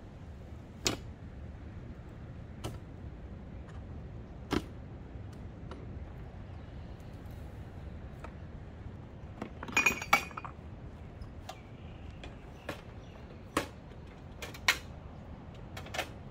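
Camp cooking gear being handled and set out: scattered single knocks and clinks every second or two, with a quick cluster of ringing clinks about ten seconds in.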